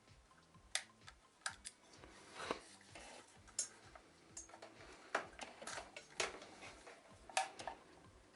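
Scattered small clicks and taps with brief scraping, from hands unclipping the plastic wire terminal connectors and thermal relay on a vacuum cleaner motor.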